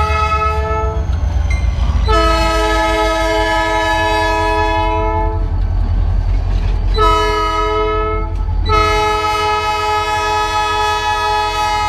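An EMD SD40-2 diesel locomotive's multi-chime air horn blowing the grade-crossing signal: one blast ending about a second in, then a long blast, a short one and a long one, over the steady low rumble of the locomotive's diesel engine.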